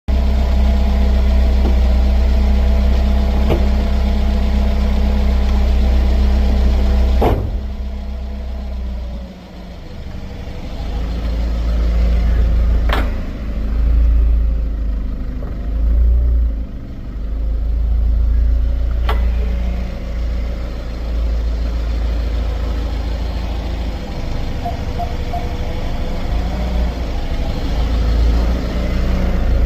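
Sharp ticks and clunks from the front Brembo brakes of a Genesis G70 2.0T, about six seconds apart, over the low rumble of the car rolling slowly. The owner suspects excess play in the brake pads.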